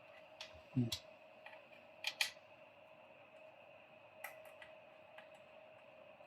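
Scattered light clicks and taps from small computer parts and tools being handled, including a quick pair about two seconds in, over a steady faint whine.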